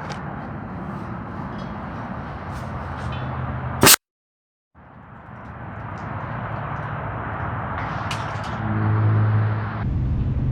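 Compressed-air cannon made from a propane tank firing: one loud, sharp blast about four seconds in, over steady background noise.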